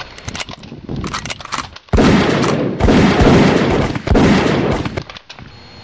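Automatic gunfire sound effect. Scattered single shots come first, then loud, continuous machine-gun bursts from about two seconds in until about a second before the end.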